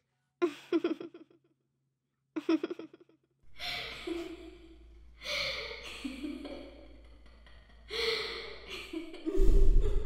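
Creepy girls' voices giggling in two short bursts, followed by drawn-out breathy gasps and sighs over a steady low drone, which starts about three and a half seconds in. A loud deep boom comes near the end.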